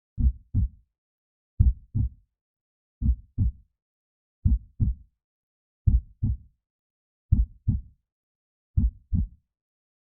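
Heartbeat sounds: a slow, steady lub-dub, seven low double thumps, one about every second and a half, with silence between each pair.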